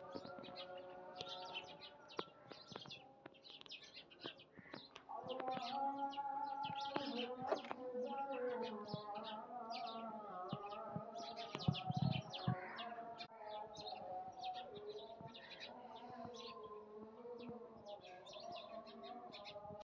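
Small birds chirping over and over, over a steady, slowly wavering droning tone. A brief low thump about twelve seconds in.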